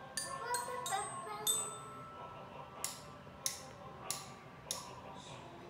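Glockenspiel struck with mallets: a few ringing metal notes, then sharp strikes evenly spaced about every half second or so.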